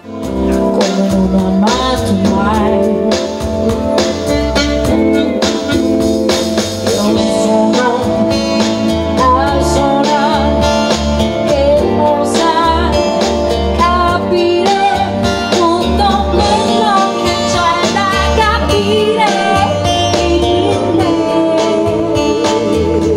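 A woman singing a pop song into a microphone over electronic keyboard backing with a steady beat, amplified through PA speakers.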